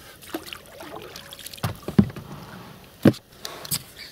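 Oars working an inflatable rowing boat: a few rowing strokes with sharp knocks, the loudest two about two and three seconds in, among fainter clicks and splashes.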